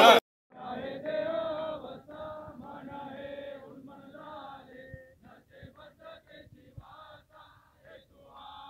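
A brief burst of chatter cuts off, then a group of voices chants together, loudest at first and growing fainter.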